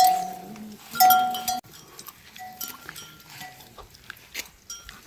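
Farm animals calling, with a metal bell ringing twice about a second apart; both stop abruptly, then fainter rings and animal sounds follow.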